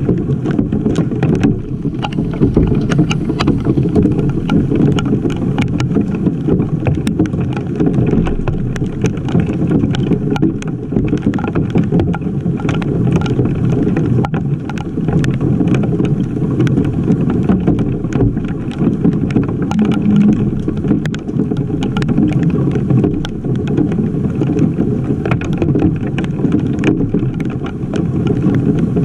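Hailstorm pouring down: a dense, steady rumble of rain and hail, with many sharp ticks of hailstones striking close to the camera.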